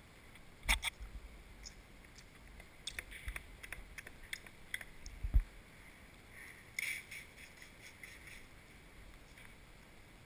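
Handling noises from hands working a wet clear paint-protection film onto a car's side-mirror housing: scattered clicks and taps, one sharp thump about halfway, and a short rustle a little later.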